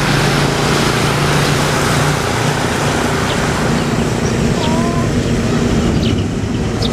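A motor running steadily under a loud rushing noise, its hum stepping up in pitch about two seconds in, with a few short high bird chirps in the second half.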